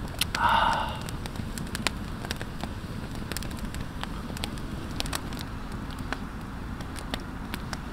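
Campfire of split firewood crackling in a fire pit, with sharp pops scattered throughout over a steady background hiss. A brief louder sound comes about half a second in.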